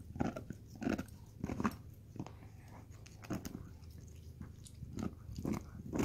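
A dog gnawing on a chew bone, with irregular crunching bites.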